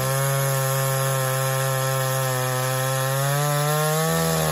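Gas chainsaw running at full throttle with its bar cutting down through a log. The engine note is steady, its pitch rising slightly near the end.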